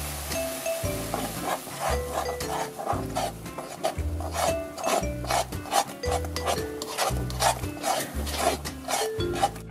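A wooden spoon stirring and scraping curdled milk around a pan in quick repeated strokes, two to three a second, as the milk separates into curds. Background music runs underneath.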